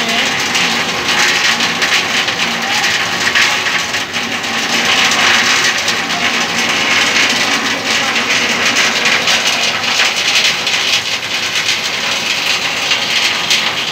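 Steady rushing noise of floodwater and rain on a flooded street, with a vehicle engine running low underneath.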